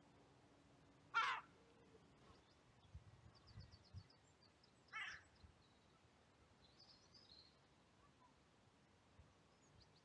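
A crow cawing twice, once about a second in and again about four seconds later, with faint high chirps of a small bird between and after.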